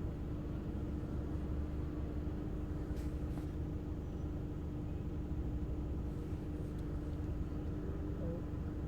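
Steady low background rumble with a constant faint hum, and a couple of faint ticks about three seconds in.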